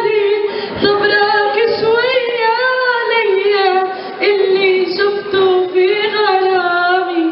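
A woman singing an Arabic song solo, drawing out long ornamented notes with a wavering vibrato and no clear words.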